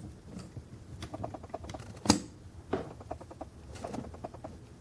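Faint scattered clicks and taps of hands handling a small diecast model, with one sharper click about two seconds in.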